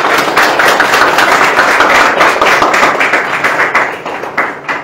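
Audience applauding: a dense round of hand clapping that thins out and fades near the end.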